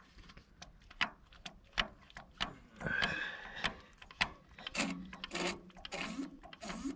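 Metal clicks, taps and a brief squeak as a hand works the fittings on the fuel injection pump of a Fiat 411c crawler's stopped diesel engine. From about five seconds in there is a rhythmic stroking, about two strokes a second. This is the fuel system being worked to get diesel to the pump after about two years standing.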